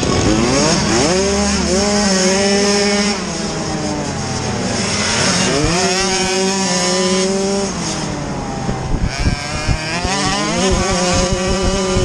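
Off-road motorcycle engines accelerating, the pitch climbing and then holding three times over, at the start, about halfway through and near the end.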